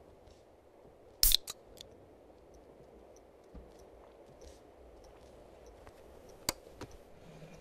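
Quiet room tone broken by a few sharp clicks and taps: a quick loud cluster about a second in, a single sharp click near the end, and fainter ticks between.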